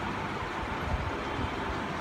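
Aquarium filter running: a steady hum with a rushing water noise, and a soft low thump about a second in.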